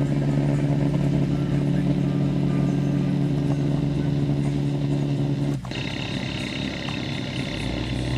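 A steady vehicle drone holding one pitch, which changes abruptly about five and a half seconds in: the low hum drops away and a higher whine sets in over a lower drone.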